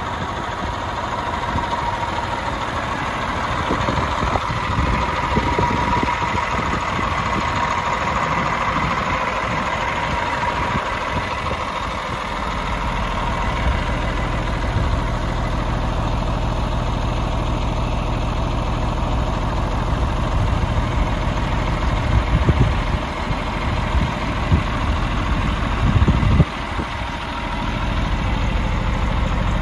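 Cummins ISM 400 turbo-diesel inline-six in a Western Star 4866S crane truck, idling steadily. A steady high whine rides over it for roughly the first half, and a few louder low surges come about two-thirds of the way through.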